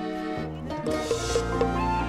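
Background music: an instrumental tune of held notes over a steady bass line, with a brief swish about a second in.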